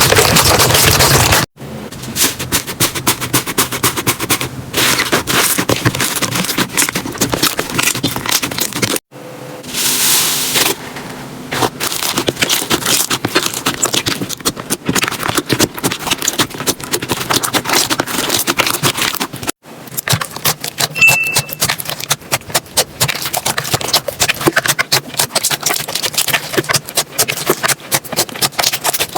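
Slime being handled, giving dense crackling and popping clicks. The sound cuts off abruptly about a second and a half in, again about nine seconds in and near the twenty-second mark, then picks up again each time.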